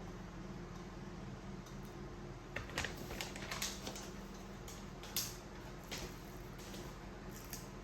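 A baby being spoon-fed: scattered light clicks and small wet smacks at irregular intervals, grouped a few seconds in and again later, over a steady low hum.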